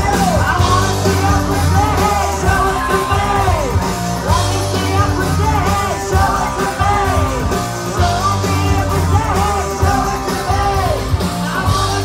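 Electronic rock band playing live and loud over a PA, with a heavy, steady bass beat and high wailing voices that swoop up and down over it again and again.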